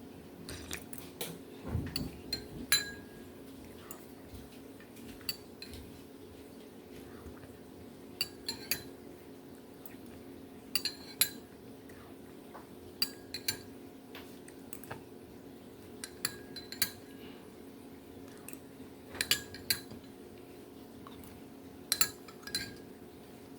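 Ice cubes clinking against a drinking glass: sharp clinks with a short ring, in small groups every two or three seconds, over a faint steady hum.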